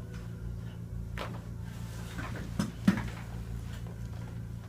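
Chiropractic neck adjustment on a patient lying face up: soft knocks of hands and table, then one short sharp crack about three seconds in, over a steady low hum.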